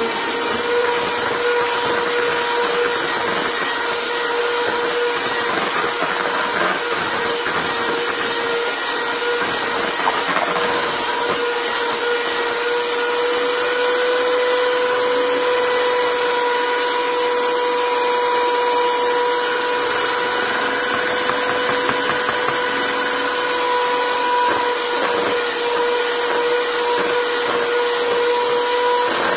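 Bella 10-speed electric hand mixer running steadily with a constant whine, its beaters mixing eggs and flour into creamed butter and sugar for cake batter.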